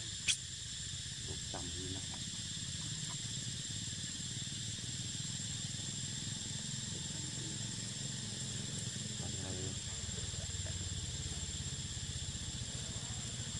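Steady high-pitched drone of insects, with a steady low hum beneath it and one sharp click about a third of a second in.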